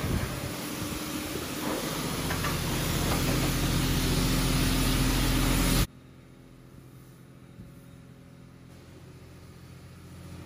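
Water spray hissing at a boat rinse station over a running vehicle engine, growing louder, then cutting off abruptly about six seconds in to a quieter steady engine hum.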